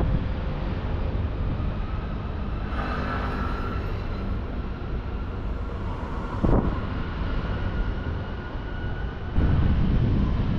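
Steady low rumble of a passing vehicle, with a brief high whine about three seconds in, a short knock a little past halfway, and a louder rumble setting in near the end.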